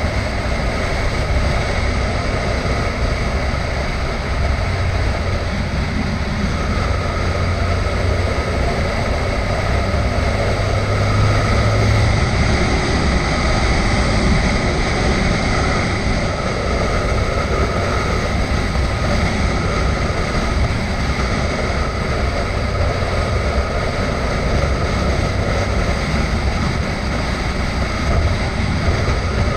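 Adventure motorcycle riding at a steady speed: a continuous engine drone mixed with a rush of noise, with the low drone strengthening between about five and twelve seconds in.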